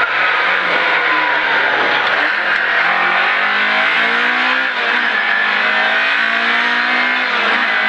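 Rally car's engine heard from inside the cabin, its revs falling over the first two seconds, then climbing through the gears, with a short dip at a gear change about five seconds in.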